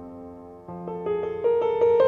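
Background piano music: soft held notes, then a quicker run of notes about halfway through that grows louder.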